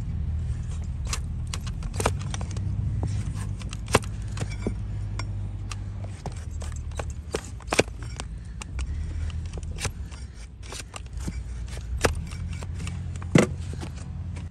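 A blade cutting and scraping the hard horn of a donkey's overgrown hoof during hoof trimming: irregular sharp cracks and clicks, some close together and some a second or more apart, the loudest near the end. A steady low hum runs underneath.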